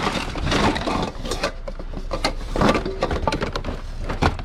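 Irregular knocks, clatter and rustling of junk being picked up and moved through a scrap pile.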